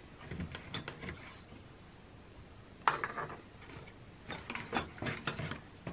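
Hands handling small metal vice parts and the cardboard packaging as the wire bobbin cradle is lifted from its box insert. The sounds are light clicks and taps, with a sharper knock about three seconds in and a run of clicks near the end.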